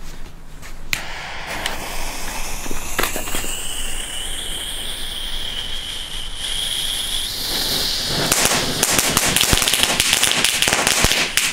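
Small youth-category firework fountain burning: a hiss with a steady high tone through the middle, then dense crackling for the last few seconds as it sprays sparks.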